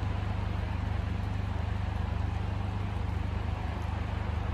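Steady low drone of an idling engine, even in pitch throughout.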